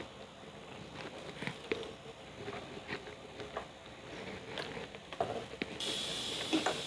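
Faint scattered clicks, then about six seconds in a high-pitched hiss switches on suddenly and holds: the flyback transformer of a new universal CRT TV chassis starting up, the sign that the chassis works.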